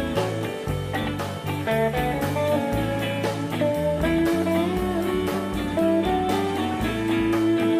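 Live blues-rock band playing an instrumental passage: an electric guitar plays a lead line over a bass and a steady drum beat.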